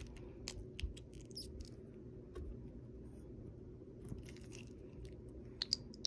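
Sticky slime being squeezed out of a foam squishy and pulled between fingers: a few faint, scattered wet clicks and pops, several close together near the end, over a low steady hum.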